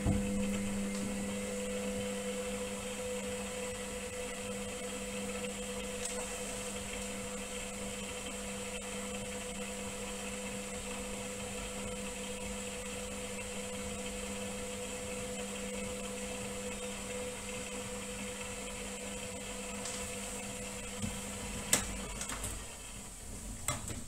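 Indesit front-loading washing machine in its wash phase, the drum turning a load of towels through sudsy water: a steady motor hum with a high whine, and the wet load swishing. A couple of sharp knocks near the end.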